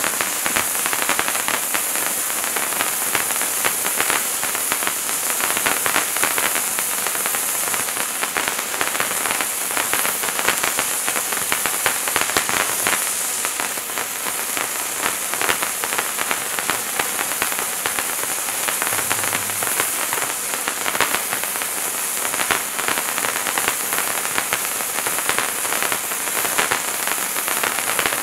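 A Bright Star Wizards Wands hand-held firework fountain burning: a steady hiss of spraying sparks, dense with fine crackling.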